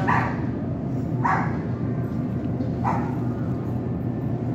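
A dog barking three times, each bark short and spaced a second or more apart, over a steady low hum.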